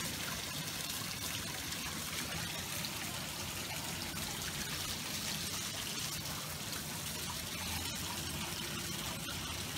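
Water trickling steadily into a shallow rock pool.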